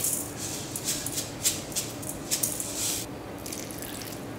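Toasted sesame seeds shaken from a shaker jar into a stainless-steel bowl of vegetables: a quick run of rattling shakes, about three a second, for the first three seconds. After that comes a fainter soft hiss as light soy sauce is poured in from a bottle.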